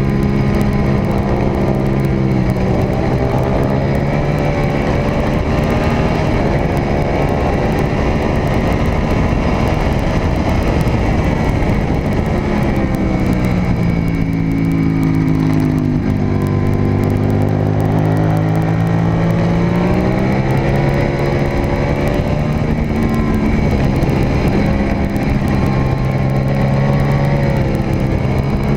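Suzuki SV650 race bike's V-twin engine heard onboard at racing speed, with heavy wind rush. The engine note rises and falls with throttle and gear changes, dropping for a few seconds about halfway through before climbing again.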